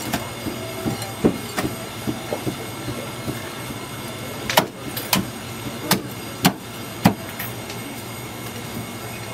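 Meat cleaver chopping through barbecued pork onto a thick round wooden chopping block. A few light knocks come first, then, about halfway through, a run of five sharp chops about two a second, over a steady background noise.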